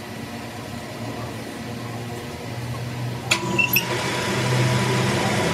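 Metal lathe being started with an axle shaft chucked in it: a few sharp clicks a little over three seconds in, then the spindle comes up to speed and the running sound grows louder and steady.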